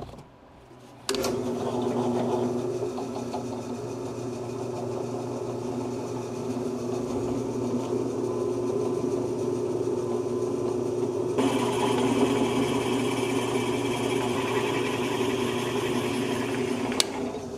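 Drill press motor starting about a second in and running steadily as its twist bit cuts into steel square tubing. About two-thirds of the way through, the cutting grows louder and harsher.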